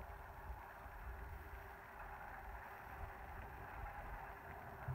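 Low, steady rumble of the SLS rocket's launch, heard from miles away.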